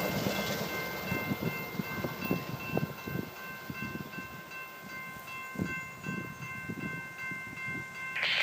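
Passing track geometry train receding, its low rumble and irregular wheel clatter fading. Over it, a steady ringing of several bell-like tones, typical of a grade-crossing warning bell, stops about eight seconds in.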